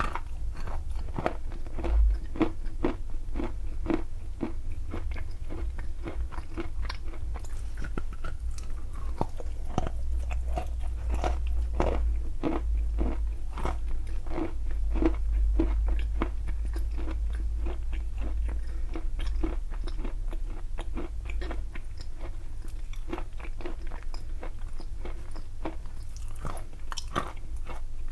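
Close-up crunching and chewing of a dry white chalky chunk: a rapid run of sharp crunches as pieces are bitten off and ground between the teeth.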